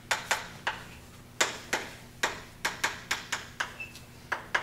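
Chalk writing on a blackboard: an irregular series of quick, sharp taps and clicks as letters and symbols are struck and stroked onto the board.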